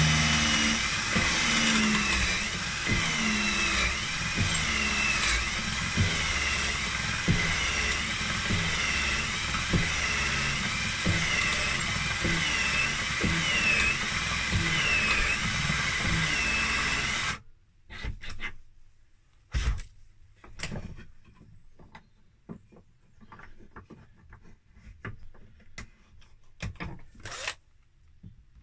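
Cordless drill spinning a pen barrel trimmer, cutting the end of a glued wooden pen blank flush with its tube. The drill runs steadily with a faint regular pulse, stops suddenly a little over halfway through, and is followed by scattered light knocks and clicks.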